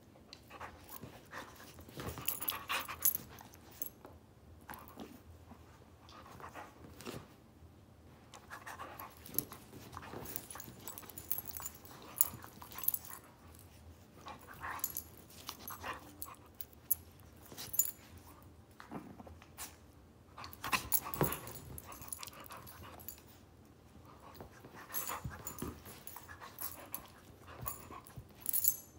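A Shih Tzu puppy and a pit bull play-wrestling: irregular bursts of dog breathing and scuffling sounds, coming in clusters every few seconds with quieter gaps between.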